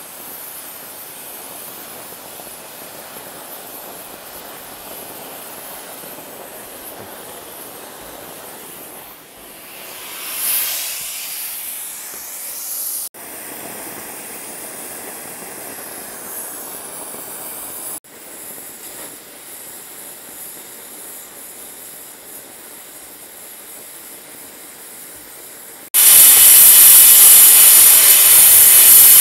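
Oxy-fuel cutting torch on a pipe beveler hissing steadily as it cuts a bevel through steel pipe. It swells briefly about ten seconds in, and near the end becomes much louder and brighter.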